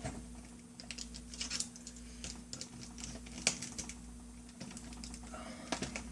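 Light, irregular clicks and taps of small plastic and metal laptop parts being handled and fitted together.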